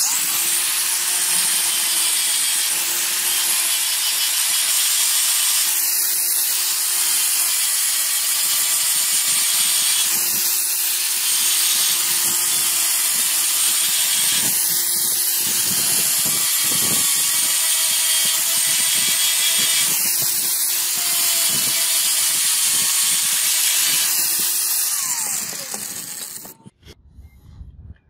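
Angle grinder fitted with a 600-grit sanding disc, running steadily as it sands a steel knife blade. Near the end it is switched off and winds down, its pitch falling.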